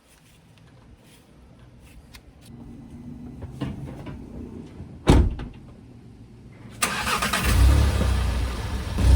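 A single loud thump about five seconds in, then a car engine starts abruptly about two seconds later and runs.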